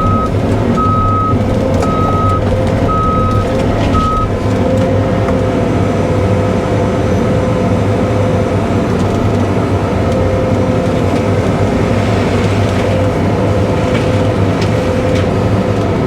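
Cat 313 excavator's diesel engine running steadily, with its travel alarm beeping about once a second for the first four seconds and then stopping as the machine halts. A few sharp knocks come in the second half.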